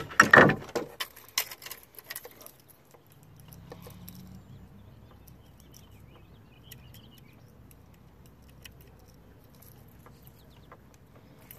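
Loud knocks and rattles of fishing gear being handled in a canoe during the first second or so, as a spinning rod is taken up to cast. After that, only a faint low hum with scattered light ticks.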